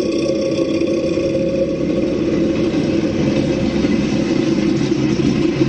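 An engine running steadily: a loud, even drone with a constant hum of several tones.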